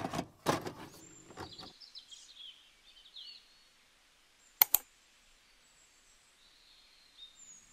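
Faint birds chirping in the background of a quiet room, with a few soft knocks in the first second or two and two sharp clicks in quick succession about four and a half seconds in.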